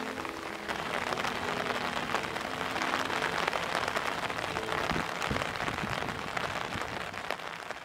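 Heavy rain falling, an even hiss made of countless tiny drop impacts.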